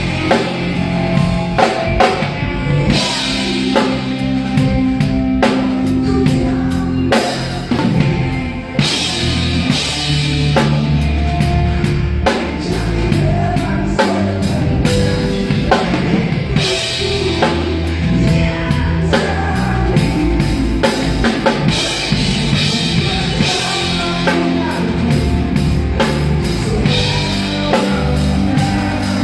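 Drum kit played along to a recorded rock song, keeping a steady beat over guitar, bass and the song's own backing.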